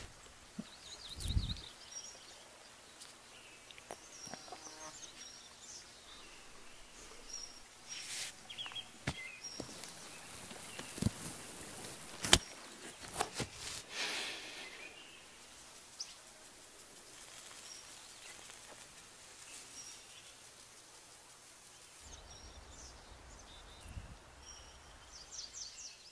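Quiet outdoor ambience with birds chirping now and then in short high trills, and a few brief rustles and clicks, the sharpest a little after halfway.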